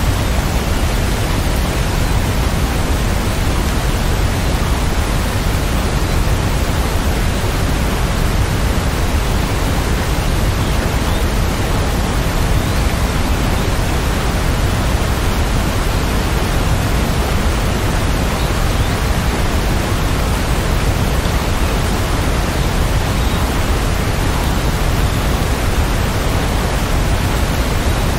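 Steady rain: an even, unbroken hiss with no single drops standing out and no thunder.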